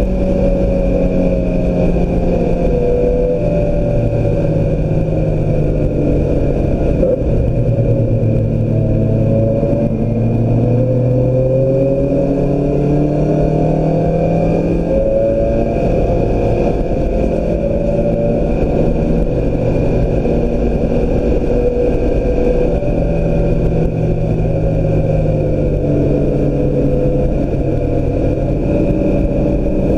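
2016 Mazda MX-5 Miata's four-cylinder engine under hard driving on a track lap, revs repeatedly climbing, then dropping with gear changes and braking, over a steady rush of road and wind noise.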